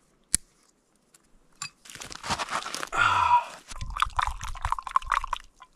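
A spoon stirring coffee in a small metal camp pot, scraping and ringing against the pot in quick repeated strokes. Before it comes a short noisy rustle, and a single sharp click sounds near the start.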